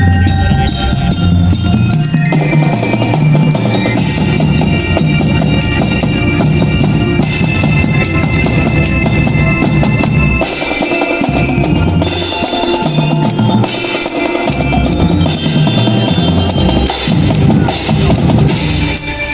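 Marching band playing: drums and bass drums under mallet percussion such as glockenspiel and marimba, with sustained melody tones. About halfway through, the low drum part breaks into separate bass drum hits.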